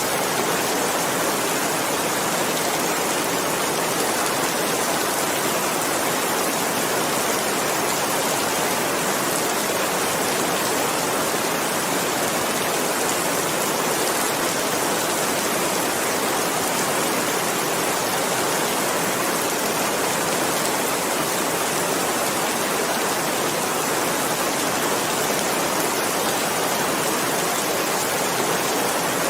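Steady, even rainfall, a continuous hiss of rain with no separate drops or thunder standing out.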